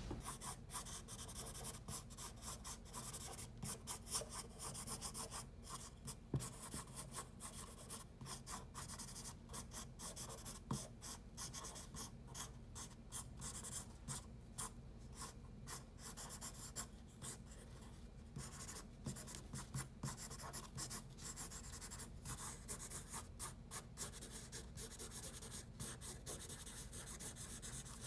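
Soft 8B graphite pencil scratching on paper in quick short strokes, several a second, as dark stripe lines are sketched.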